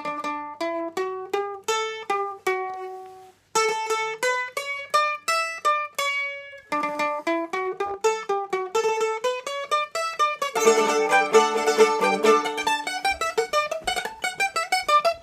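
A plucked string instrument playing a tune picked note by note, in short phrases with brief pauses about three and a half and six and a half seconds in; from about ten seconds in the notes come quickly repeated in fuller chords. No singing.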